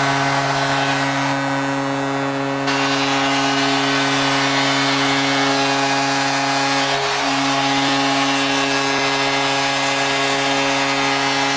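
Ice hockey arena goal horn sounding one long, steady blast over a cheering crowd, signalling a home-team goal.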